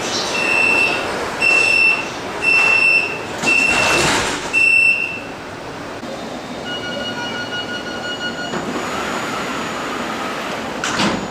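Metro train door-closing warning: a high electronic beep repeating about once a second for some five seconds, with a thump about four seconds in. The beeping then gives way to station platform noise beside a London Underground S Stock train, with a steady two-note tone for about two seconds and another thump near the end.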